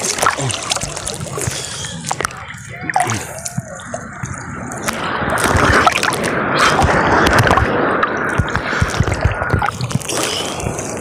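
Seawater sloshing and splashing right against a phone held at the surface by a swimmer, with the microphone dipping in and out of the water. A louder rush of water comes about halfway through.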